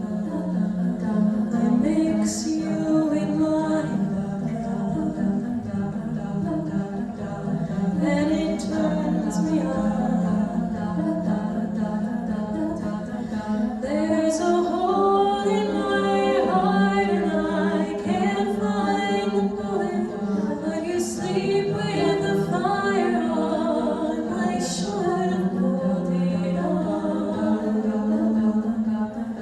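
A cappella vocal ensemble singing: a female solo voice over sustained, close-harmony backing vocals and a held low bass line, with no instruments.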